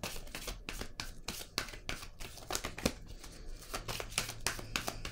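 A deck of tarot cards shuffled by hand: a quick, uneven run of soft card clicks and slides.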